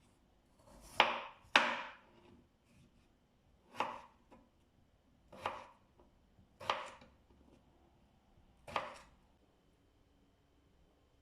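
Knife chopping on a cutting board: six separate, unhurried cuts at uneven intervals, each a sharp knock with a short tail.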